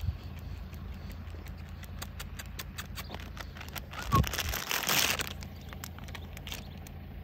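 Plastic snack-bag packet crinkling loudly as it is pulled off a puppy's head, about four seconds in and lasting about a second. Light scattered ticks and a steady low rumble run underneath.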